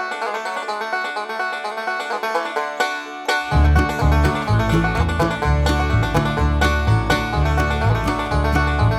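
Banjo-led bluegrass background music of fast plucked notes, with a bass line and beat coming in about three and a half seconds in.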